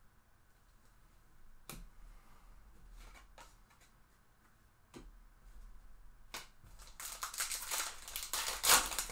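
Light clicks and taps of trading cards and a hard plastic card holder being handled, then about two seconds of loud crinkling near the end as a foil trading-card pack wrapper is torn open.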